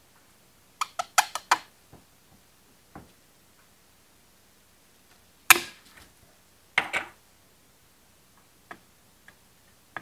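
Sharp clicks and taps of a metal pick against a plastic string-trimmer fuel tank as the fuel-line hole is worked open: a quick run of four clicks about a second in, a louder knock about halfway, then scattered lighter ticks.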